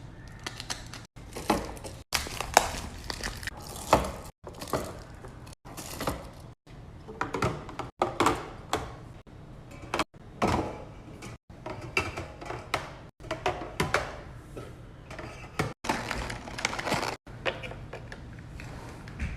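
Knocks, clunks and clatter of food containers and bottles being set into a fridge, in short clips that cut off abruptly about every second.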